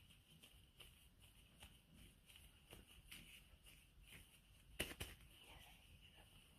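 Faint handling sounds of cookie dough being scooped from a glass mixing bowl, with two sharp clinks of the utensil against the glass just under five seconds in.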